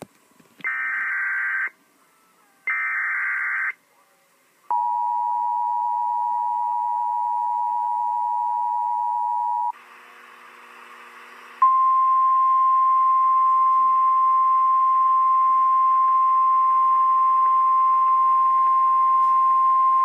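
Emergency Alert System Special Marine Warning tones: two short screeching SAME data bursts of the alert header, then the two-tone EAS attention signal held for about five seconds, and after a short pause the single steady weather-radio alarm tone held for about nine seconds.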